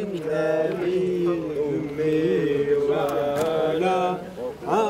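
Men's voices chanting together in a Sufi devotional chant, in long, drawn-out phrases that slide between notes, with a brief break between phrases near the end.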